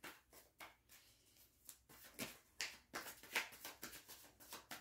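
Tarot cards being handled: a run of light, irregular clicks and snaps, about three or four a second, coming quicker and louder in the second half.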